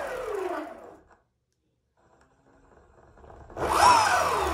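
Belt-driven brushless motors of an electric skateboard, run by a Flipsky dual FSESC 6.6 speed controller, spinning the wheels in a bench test: a whine that falls in pitch as the motors slow and fades out about a second in. A second run starts a little after three and a half seconds, its whine rising quickly and then falling again.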